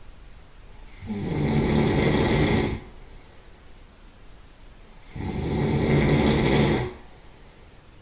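Loud nasal snoring from a person lying on their side: two long snores, each nearly two seconds long, about four seconds apart.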